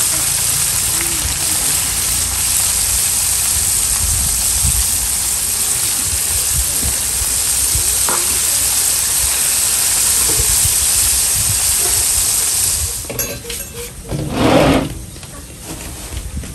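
Batter-coated Bombay duck pieces sizzling steadily in hot frying oil, a dense hiss that cuts off abruptly about thirteen seconds in. A short, louder noise follows about a second later.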